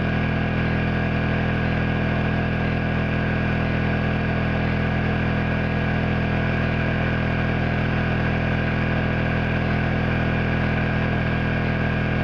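Honda EU2000i inverter generator's single-cylinder four-stroke engine running steadily at a constant pitch, held at speed under a load of about 2100 watts.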